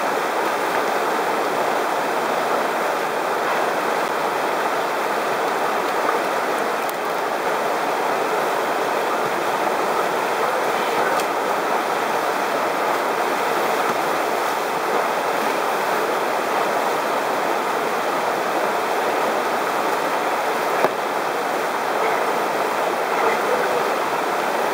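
Whitewater rapid rushing steadily, a dense even roar of tumbling water.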